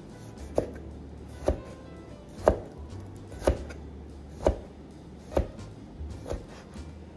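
Chinese cleaver chopping down through slices of pickled mustard root onto a cutting board: seven even knocks about one a second, the last one lighter.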